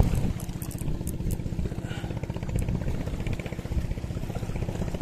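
Small Ryobi spinning reel being cranked fast to bring in a hooked fish, its gears giving a rapid, even whirring rattle.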